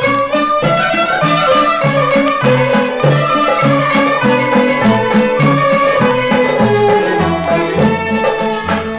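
Instrumental introduction of a 1967 Algerian popular song, played from the original mono 45 rpm EP: a melody runs over a bass line that steps from note to note, with no singing yet.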